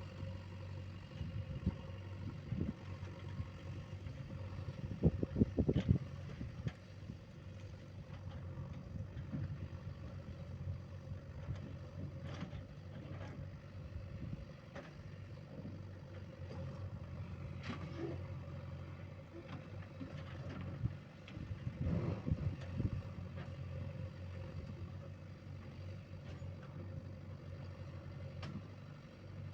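JCB 3DX backhoe loader's diesel engine running steadily, with louder stretches of clatter about five seconds in and again around twenty-two seconds.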